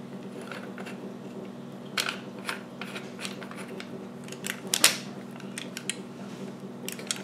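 Scattered light clicks and knocks of an APS ASR 112 airsoft rifle's parts being handled and turned as a front piece is screwed onto the upper receiver, with the sharpest click about five seconds in, over a faint steady hum.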